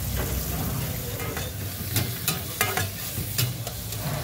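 Diced onion, tomato and green chilli frying in butter in a metal frying pan over a gas flame, sizzling steadily, with a metal spatula scraping and clinking against the pan several times, mostly in the second half.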